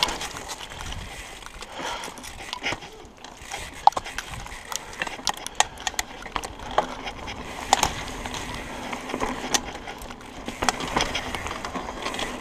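Mountain bike rolling fast down a rough dirt trail: tyre noise on dirt and rocks with frequent sharp clicks and rattles from the bike over the bumps.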